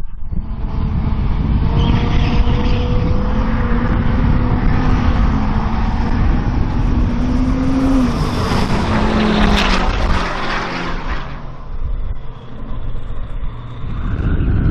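Turbo-diesel pickup truck engine running hard in a drag race, its note holding fairly steady for several seconds, with a louder rushing noise about eight to ten seconds in. The sound dips around twelve seconds and builds again near the end.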